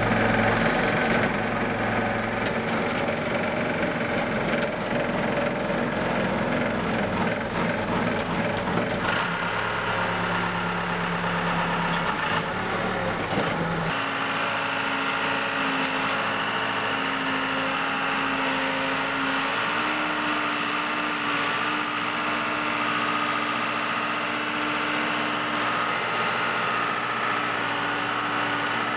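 Diesel backhoe engine running steadily while plowing snow, its note shifting as it works. About halfway through the sound changes abruptly to a steadier, thinner hum with less low rumble.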